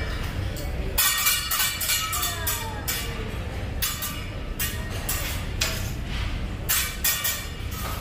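Metal spatula and fork clanking and scraping on a steel teppanyaki griddle in a run of sharp clinks at irregular intervals, over a steady low hum.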